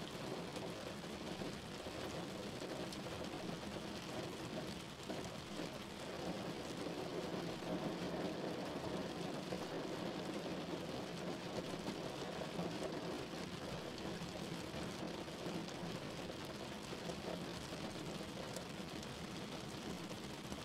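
Steady low hiss and rumble of background noise with a faint hum, even throughout, with no distinct events.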